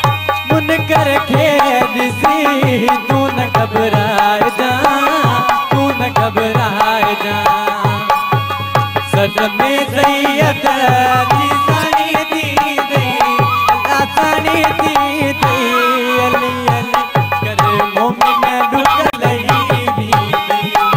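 Instrumental interlude of Sindhi Sufi devotional music: a dholak barrel drum keeps a steady rhythm under a sliding melodic line, with no singing.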